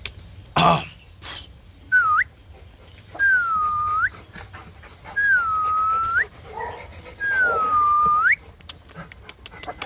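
A three-week-old Rottweiler puppy gives one short sharp yap, then four high whining calls in a row. Each call dips, holds steady and ends in a quick upward flick. Soft grunts come under the last two calls.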